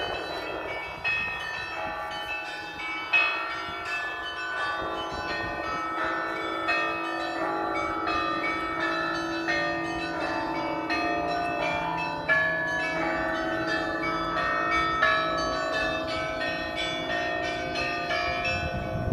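Russian Orthodox cathedral bells ringing: quick, overlapping strikes of smaller bells over the steady hum of a larger bell, with a few heavier strokes standing out.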